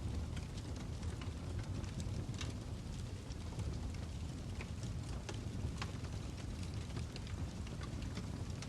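Wood fire burning in a fireplace: a steady low rumble of flames with scattered sharp crackles and pops from the logs.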